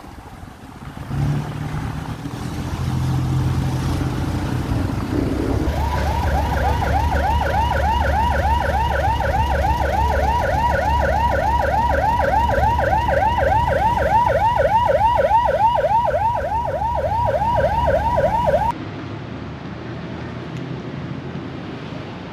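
An emergency siren yelping in a fast rising-and-falling cycle, about three sweeps a second, over a low engine and traffic rumble. The siren starts about six seconds in and cuts off abruptly a few seconds before the end.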